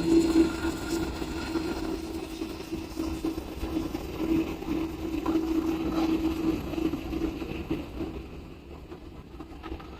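Jet airliner engines: a steady droning hum with a faint high whine, fading away over the last few seconds as the aircraft moves off.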